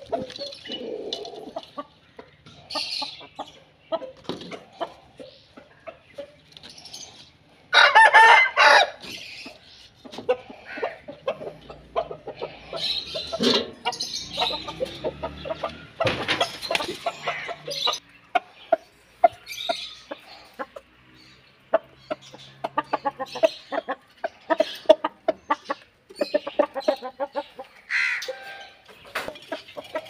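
Roosters and hens clucking and calling repeatedly, with one loud rooster crow about eight seconds in.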